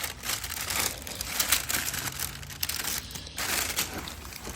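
Plastic packaging crinkling and rustling in irregular bursts as parts are handled by hand.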